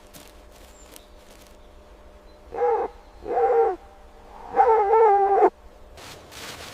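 An animal calling three times in high, even-pitched whines, the third call the longest and loudest.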